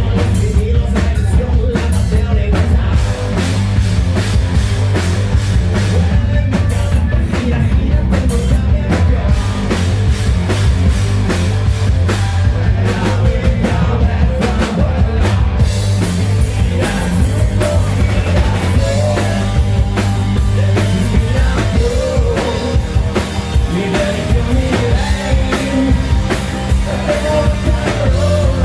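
Hard rock band playing loudly, with a driving drum kit and heavy bass and guitars filling the sound.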